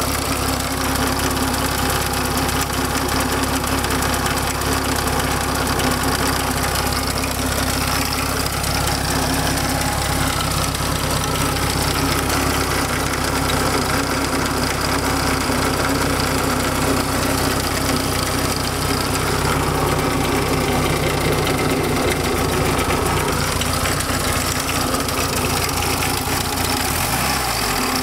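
VW Beetle 1300's air-cooled flat-four engine idling steadily, with a brief dip in pitch near the end. It carries a strange noise that the owner cannot place between the cooling fan and the generator.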